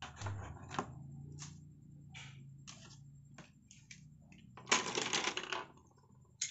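Light knocks and rustles of art supplies being laid on a wooden table, then a louder clatter of coloured pencils being set down about two-thirds of the way in.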